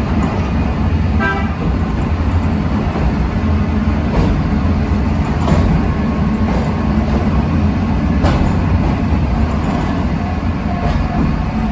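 Sightseeing trolley train running, a steady low rumble, with a short horn toot about a second in.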